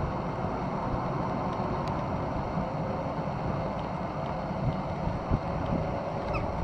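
ER2K electric multiple unit pulling away from the station: a steady running rumble of the train, with wind buffeting the microphone and a few brief thumps about five seconds in.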